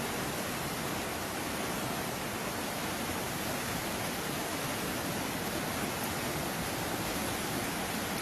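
Steady rushing of water from heavy rain and flooding: an even, unbroken hiss with no changes.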